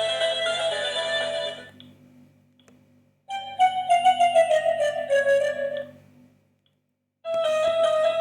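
Preloaded ringtones of a Sony Ericsson W900i phone played one after another: one tune stops about two seconds in, a short descending melody plays for about three seconds, and a new tune starts near the end.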